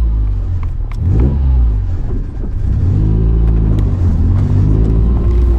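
Honda Civic hatchback's four-cylinder engine, heard loud from inside the cabin: a low rumble with a quick rev that rises and falls about a second in, then revs climbing slowly as the car pulls away.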